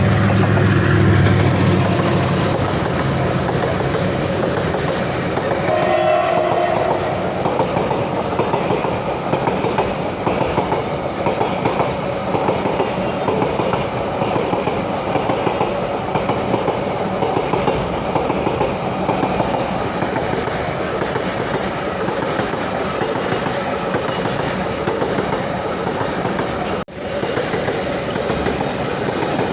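Indian Railways WDG-4G diesel freight locomotive's engine passing at the start, then a container freight train's wagons running fast over the track with a steady clickety-clack of wheels on rail joints.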